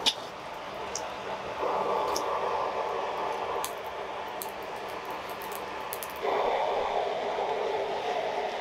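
Air blown through a pipe into a charcoal forge, a steady rushing noise that starts about a second and a half in, drops away around three and a half seconds and comes back about six seconds in, fanning the fire. Burning charcoal crackles and pops throughout, with a sharp click right at the start.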